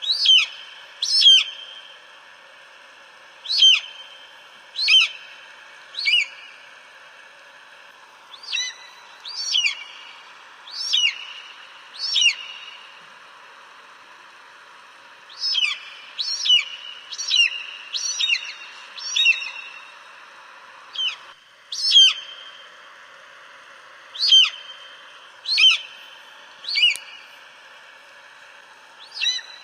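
Eagle calling: short, sharp, high cries that fall in pitch, repeated about twenty times in pairs and quick runs over a steady background hiss.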